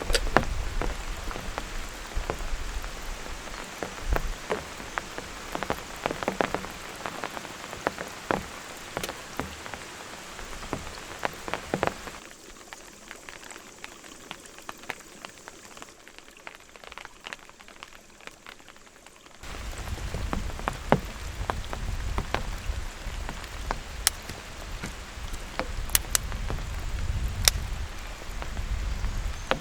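Rain falling steadily, with many sharp drop strikes over an even hiss. About twelve seconds in the sound cuts abruptly to a quieter patter for some seven seconds, then returns just as suddenly with a low rumble underneath.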